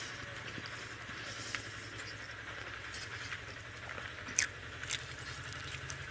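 Fingers mixing and pressing rice on a steel plate, with scattered soft clicks of eating and a sharper click about four seconds in, over a steady low hum.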